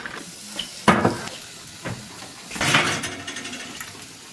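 Kitchen clatter of dishes and utensils: a sharp knock about a second in, a lighter knock just after, and a short rattling scrape near the middle.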